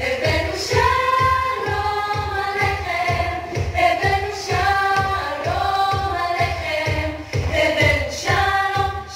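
A song with voices singing a melody over a steady low beat, about two beats a second.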